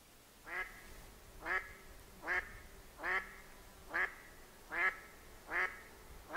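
A duck calling in a steady series of seven short calls, one about every 0.8 s, each rising in pitch.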